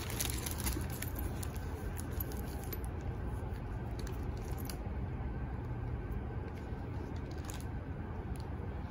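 Faint clicks and handling of a metal spring-gate ring as a leather strap is clipped onto a sling bag, over a steady low background hiss.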